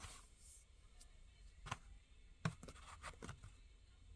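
Faint handling of a carded diecast-car package: a short rub at first, then a few light clicks and scrapes of the plastic blister and card.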